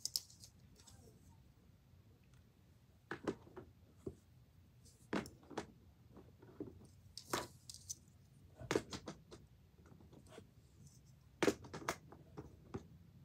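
Plastic fidget toys, among them segmented twist-snake fidgets, being handled and set down: scattered clicks and clatters in small clusters every second or two.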